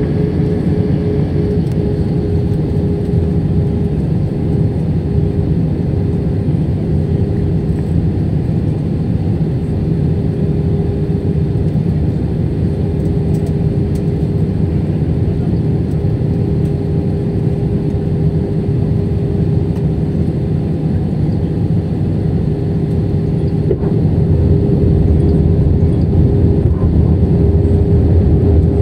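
Jet airliner cabin noise heard from a window seat over the wing on the descent to land: the steady rush of engines and airflow, with a steady hum running through it. It grows a little louder about 24 seconds in.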